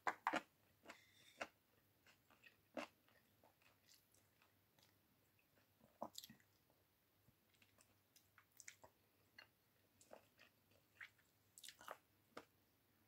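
Close-miked eating sounds: soft chewing, biting and lip smacks as chicken pieces are picked from a bowl of arroz caldo by hand and eaten. They come as scattered short clicks over near silence, loudest right at the start.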